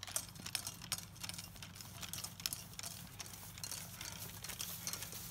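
Golf clubs knocking together in a carried golf bag: faint, irregular clicks and rattles over a low steady hum.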